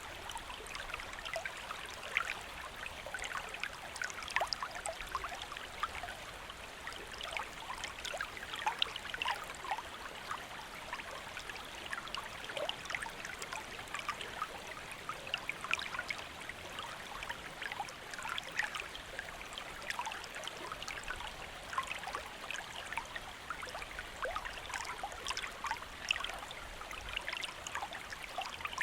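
A shallow stream or small river running steadily, with many small trickles and splashes over stones.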